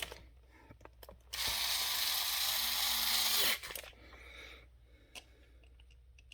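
A 12-volt GETUHAND electric impact wrench run free with no load in a single burst of about two seconds, its motor whirring and then spinning down as it stops. A few light clicks come before and after the burst.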